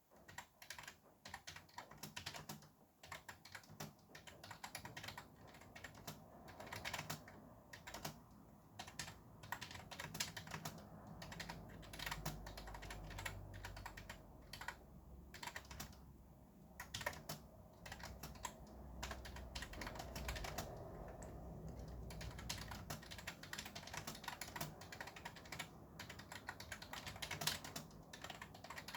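Fast typing on a computer keyboard: a quick, irregular run of key clicks with short pauses between bursts.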